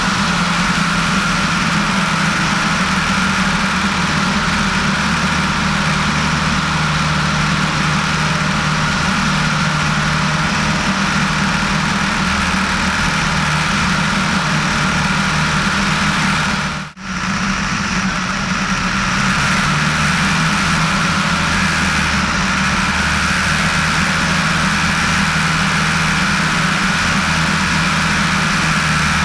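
Piper PA-18-150 Super Cub floatplane's four-cylinder Lycoming O-320 engine and propeller running at a steady cruise power in flight, a continuous even drone. The sound drops out for a split second about halfway through.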